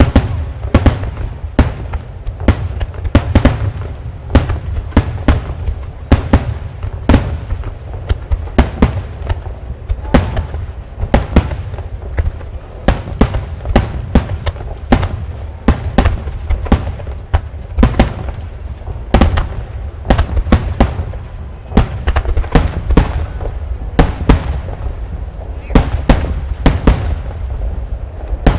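Rapid-fire aerial firework shells from a super-large Super Vesuvius barrage bursting one after another, about two sharp bangs a second over a continuous low rumble.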